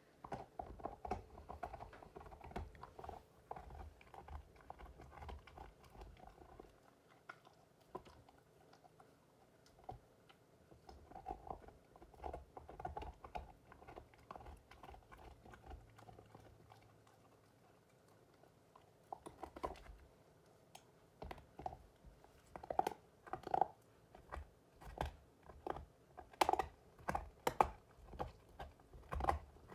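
Alaskan malamute gnawing on a bone, its teeth giving irregular crunches, cracks and wet clicks. The crunching grows louder and more frequent in the last third.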